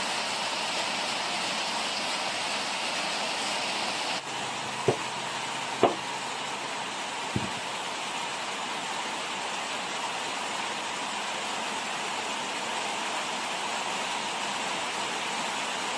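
Steady hiss of rain, with three sharp knocks of a cleaver chopping chayote on a wooden board, about a second apart, a third of the way in.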